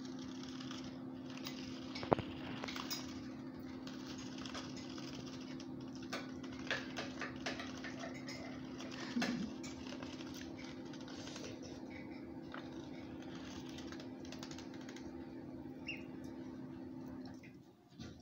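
Scattered light clicks and taps of eating at a bowl of corn grits, over a steady low hum that stops near the end.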